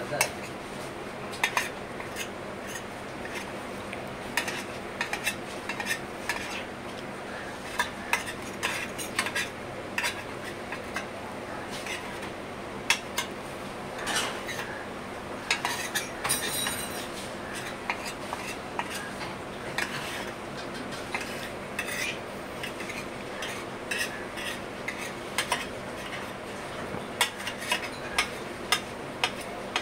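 Metal spoon scraping and clinking against a stainless steel thali plate, in irregular taps and scrapes, over a steady background hum.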